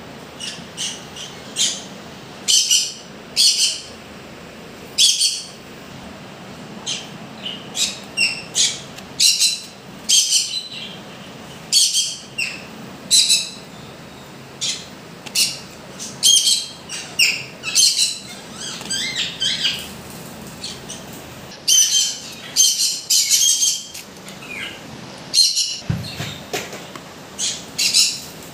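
Pet conures calling: many short, high-pitched squawks, one after another in quick bursts and rapid clusters.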